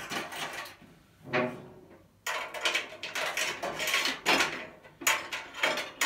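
Metal tool chest being handled on its roller cabinet: a few knocks, a short lull, then a dense run of clattering knocks and scrapes through the second half.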